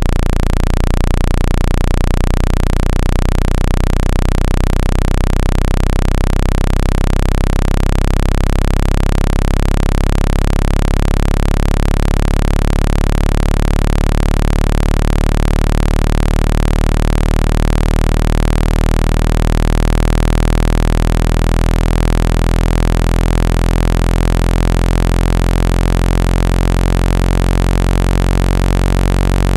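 Generated speaker-cleaning tone: a loud, steady low bass hum with many overtones over a hiss, meant to shake water and dust out of a phone speaker's grille. The low end pulses quickly for the first few seconds, then settles into an even tone.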